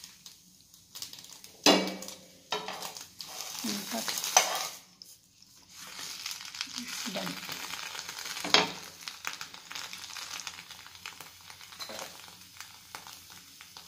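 Banana-leaf parcel sizzling on a hot tawa as it steams, with a few sharp handling knocks and leaf rustles as it is turned over by hand: loud ones about a second and a half in, around four seconds, and about eight and a half seconds in.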